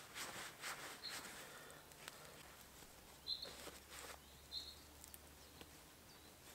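Faint rustling and scraping of hands and a wooden peg in dry leaf litter as a canvas poncho shelter is pegged down, with a few short, high bird chirps.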